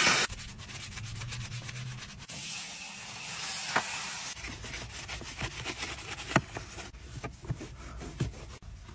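A vacuum nozzle's hiss cuts off just at the start. Close scrubbing and rubbing on car-interior plastic follow: a brush scrubbing, then a microfibre towel wiping, with scattered small clicks and taps.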